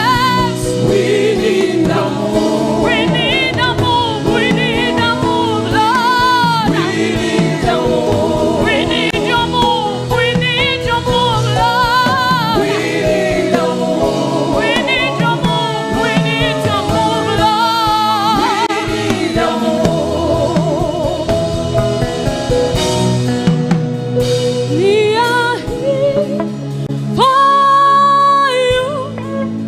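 Gospel worship music: voices singing a praise song over instrumental backing, with a long held note near the end.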